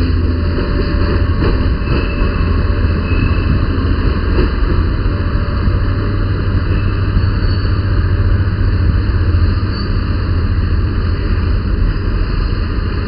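Diesel locomotive hauling a passenger train out of the station, a steady low engine rumble with running noise.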